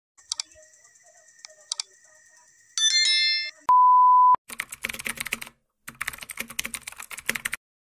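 Editing sound effects: two soft mouse clicks and a short notification chime, then a steady test-tone beep for under a second, then rapid computer-keyboard typing for about three seconds.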